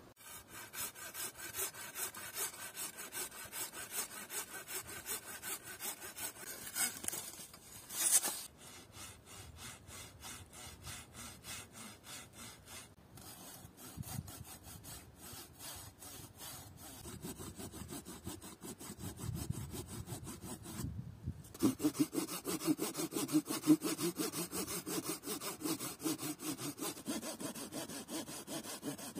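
Folding hand saw cutting through a fresh green branch with steady back-and-forth rasping strokes, about two a second. After a short break about 21 seconds in, the strokes sound deeper and louder as the cut goes on. There is one brief louder noise about eight seconds in.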